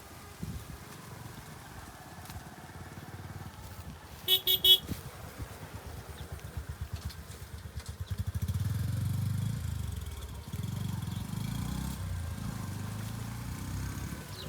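A motor vehicle engine running, its low firing rhythm quickening until it settles into a steady drone. Three quick horn beeps sound about four seconds in.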